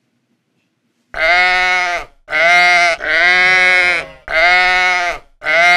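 Sheep bleating: five bleats in quick succession, starting about a second in, the last running past the end.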